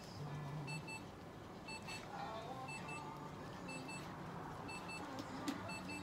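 An electronic device beeping in short double beeps, about once a second, with one sharp click about five and a half seconds in.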